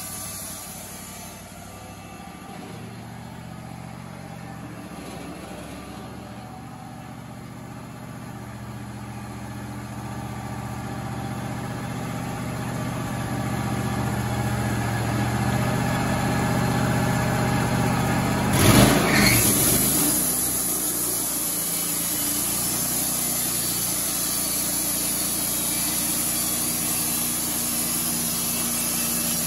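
Wood-Mizer LT35 portable band sawmill running, its engine hum growing louder as the sawhead comes down the track. About two-thirds of the way through, the band blade bites into the cedar board on the clapboard jig with a sharp burst, and the cut goes on as a steady hiss of blade and sawdust over the engine.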